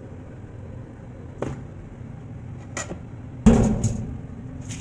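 Kitchen handling knocks as washed whole raw chickens are moved from a stainless colander into a plastic bowl: a couple of light knocks, then a loud thud about three and a half seconds in, with a second right after.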